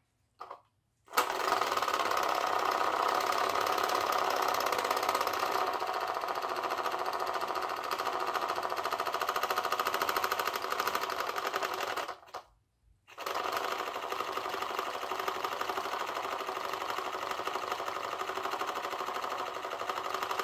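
Small battery-powered motor spinning magnets that drive a model boat's flapper paddle, making a fast, even mechanical buzz. It starts about a second in, cuts out for about a second near the middle, then runs again.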